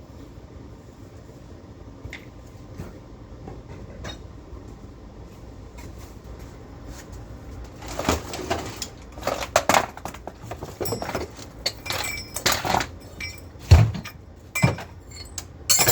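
Steel parts being handled: a quiet stretch, then from about halfway a run of irregular metal clanks and knocks, a few of them loud, as pieces and clamps are knocked and shifted into place.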